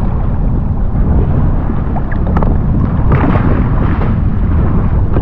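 Steady low rumble of wind buffeting the microphone on open sea, with water washing against the jet ski's hull and a brief louder wash about three seconds in.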